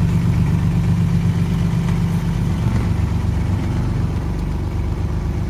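Small wooden fishing boat's engine idling, a steady low running sound that eases slightly in the second half.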